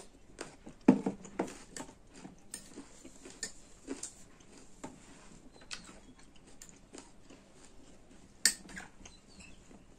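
A metal spoon clinking and scraping against a small glass bowl, in scattered short clicks, the sharpest about a second in and again near the end, with mouth sounds of chewing wild olives.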